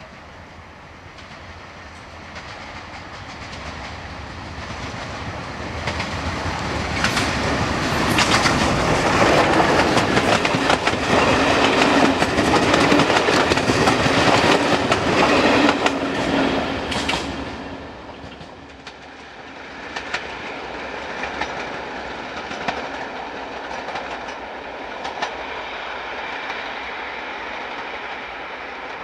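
LNER B1 class steam locomotive hauling a train of coaches, approaching and passing close by. The sound builds to its loudest as the engine and carriages run past, with the wheels clicking rapidly over rail joints, then drops off suddenly about eighteen seconds in and carries on fainter as the train draws away.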